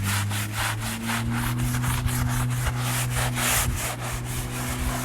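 Vigorous hand scrubbing of a detergent-sprayed PVC floor tile, in quick back-and-forth rasping strokes about four a second, with a steady low hum beneath.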